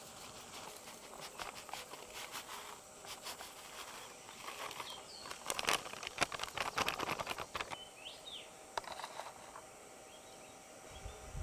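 A dense run of small clicks and rattles from hands-on cooking work, loudest in the middle, with a bird chirping briefly twice in the background.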